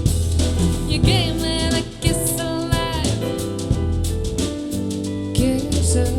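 Soul-jazz song playing: a singer's voice with vibrato over a deep bass line and a drum kit.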